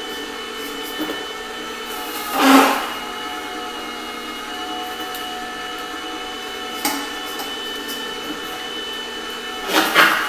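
Comfee juicer running steadily with a motor hum while crushing apple pieces, with loud crunching about two and a half seconds in and again near the end, and a smaller one midway.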